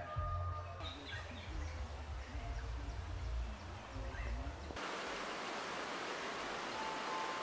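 Outdoor ambience with a gusty low rumble of wind on the microphone. After an abrupt cut nearly five seconds in, it gives way to a steady rushing hiss of flowing river water.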